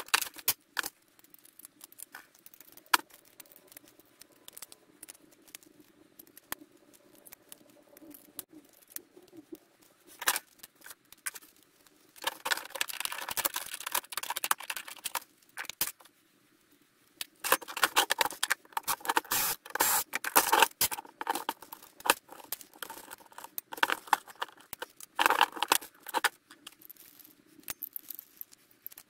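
Hand tools working on a stripped VHS video recorder: clicks and snips of pliers and cutters, and the rattle and scrape of small metal and plastic parts on a wooden workbench. The sound comes in scattered clicks with three bursts of busy rattling, the longest a few seconds long.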